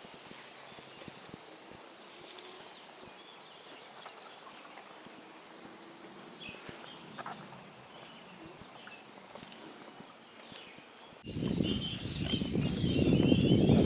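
Footsteps on a forest trail over a faint, steady, high insect drone. About eleven seconds in, a much louder rushing, rustling noise cuts in suddenly, with bird chirps over it.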